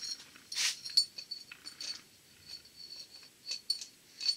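Irregular light metallic clicks and clinks from small Delco-Remy starter parts being handled during reassembly, with the sharpest click about a second in.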